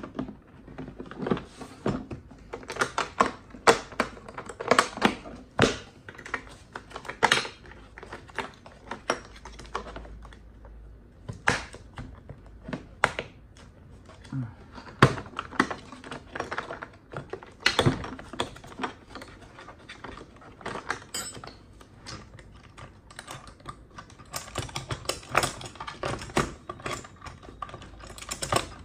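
Metal sockets and hand tools clicking and clinking against each other and the plastic tool case as loose pieces are handled and fitted back into their moulded slots. The clicks come irregularly, in busier bursts now and then.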